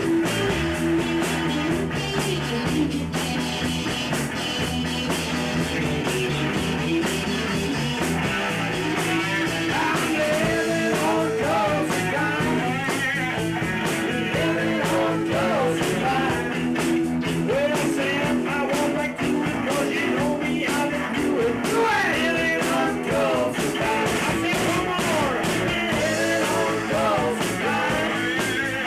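A rock band playing a song live in rehearsal, with guitar, and a voice singing from about ten seconds in.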